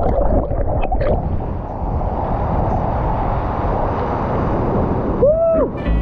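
Steady rush of churning waterfall plunge-pool water around a camera dipped under the surface, with splashes in the first second. Near the end a man lets out one short yell that rises and falls in pitch.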